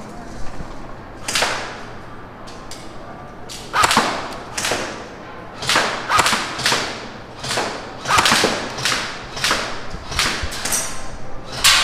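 Airsoft AK-47 replica firing single shots, about fifteen sharp cracks in an uneven rhythm. The cracks come one every half second to a second through most of the stretch, after a single shot and a short pause near the start.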